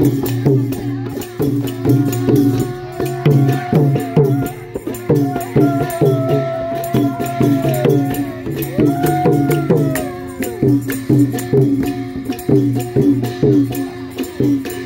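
Thai klong yao long-drum ensemble playing a steady, fast repeating rhythm, with a tambourine rattling along. A held, wavering melodic line rides over the drums for several seconds in the middle.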